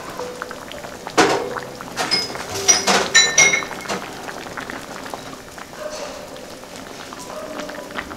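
Hotpot broth bubbling in a stainless steel pot, with a cluster of sharp tableware clinks from about one to three and a half seconds in, several ringing briefly.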